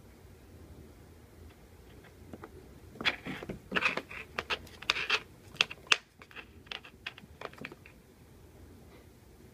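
A kitten playing with a coaxial cable on a hard floor: a few seconds of quick taps, clicks and scratches as its claws and the cable's metal connector hit the floor, starting about three seconds in.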